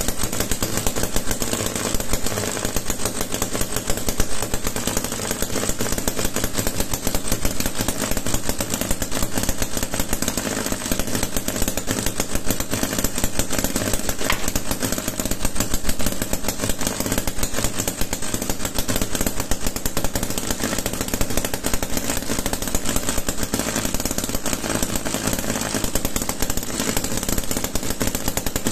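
Homemade single-cylinder two-stroke model engine of about 12 cm³ running steadily, a fast even stream of firing pulses.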